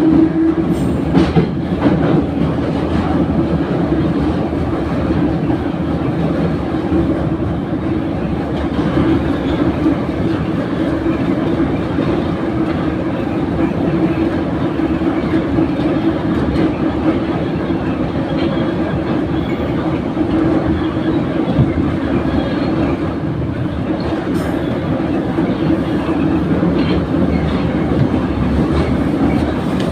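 Kyiv Metro train running between stations, heard from inside the carriage: a steady hum over the rumble of wheels on rails.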